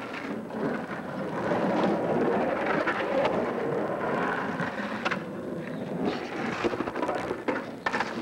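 Skateboard wheels rolling on the bare concrete of an empty swimming pool, a steady rumble, with a few sharp knocks in the second half.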